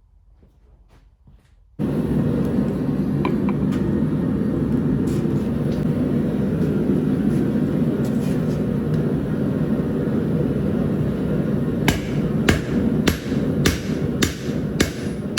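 A steady, loud rushing noise of a running forge starts abruptly about two seconds in. From about twelve seconds on, a hammer strikes the steel of a railroad anchor at an even pace of about two blows a second over it.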